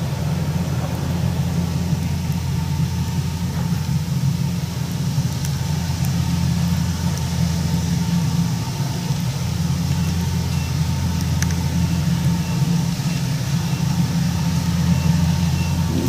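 Kubota DC70 combine harvester's diesel engine running steadily, a low even drone.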